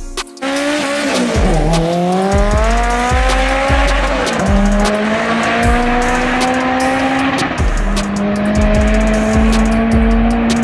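A car engine accelerating hard, its pitch climbing through the gears with two upshifts, over background music with a steady drum beat.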